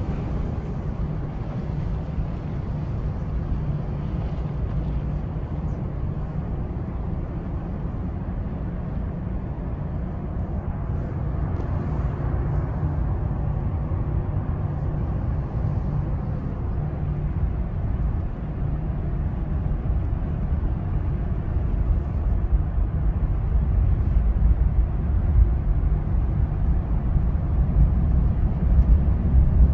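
Steady low rumble of an automatic tunnel car wash, muffled inside the car's cabin as the car is pulled through, growing somewhat louder near the end.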